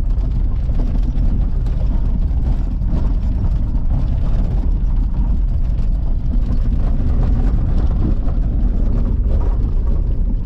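Jeep driving along a dirt off-road trail, heard from inside the cab: a steady, low engine and drivetrain rumble mixed with tyre and trail noise.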